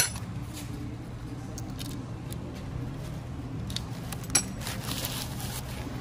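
Light metallic clicks and clinks of motorcycle engine parts being handled by hand at the balancer-chain adjuster, about half a dozen scattered clicks with a sharper one about four and a half seconds in, over a steady low hum.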